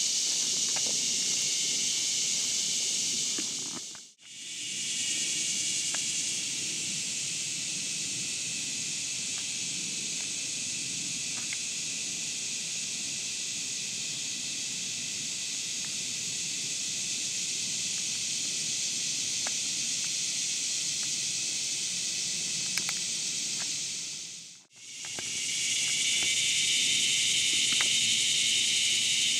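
Steady, shrill drone of an insect chorus in the woods, crickets and similar insects calling without a break. It drops out briefly twice, about four seconds in and again some twenty seconds later, with a few faint ticks over it.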